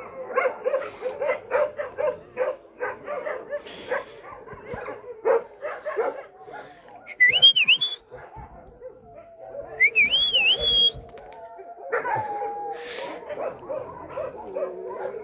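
Several shelter dogs barking in a rapid, overlapping chorus, which thins out after about six seconds. Two brief wavering, rising whistle-like tones come about seven and ten seconds in.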